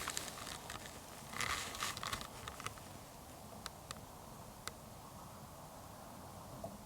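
Faint rustling about a second and a half in, then a few light, sharp clicks, over a quiet outdoor background.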